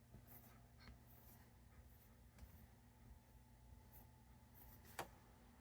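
Near silence: faint handling noises over a low hum, with one sharp click near the end.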